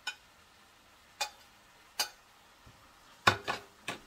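A metal cooking spoon knocking and clicking sharply against a frying pan and plate, about five separate knocks with a quick cluster of them near the end.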